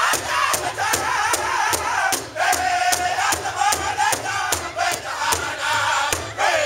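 Powwow drum group singing in high, strained voices in northern style over a steady unison beat on a large hide powwow drum, struck by several drummers together at about two to three beats a second.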